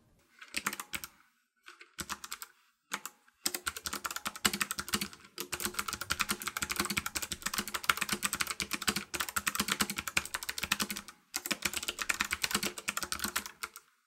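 Typing on a Havit HV-KB390L low-profile mechanical keyboard with clicky Kailh Choc blue switches. A few short bursts of keystrokes come first, then fast, near-continuous typing with a couple of brief pauses, stopping just before the end.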